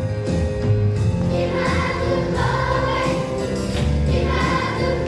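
A large children's choir singing in unison with live band accompaniment, steady bass notes held under the voices.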